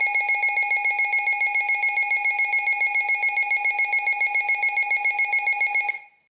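Electronic emergency alert tone, a steady high-pitched tone pulsing rapidly about eight times a second, sounding just before a new warning is read. It cuts off about six seconds in.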